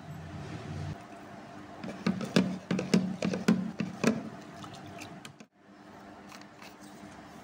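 Metal spoon stirring a drink in a plastic jug, knocking against the jug's side roughly twice a second for about two seconds, starting about two seconds in.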